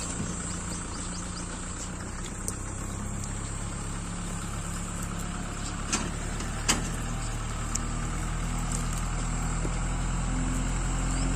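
Kubota 45 hp 4x4 tractor's diesel engine running steadily at low revs while pulling a fully loaded trolley down a steep slope, slowly growing louder as it approaches. A couple of sharp knocks come about six and seven seconds in.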